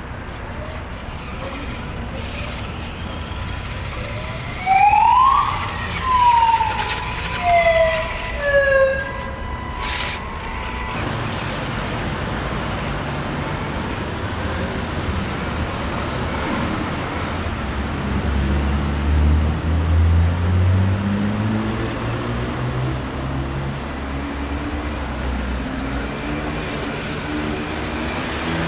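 A siren-like wail in four loud swells, each sweeping up and back down in pitch, followed by a low motor running with a pitch that slowly rises and falls.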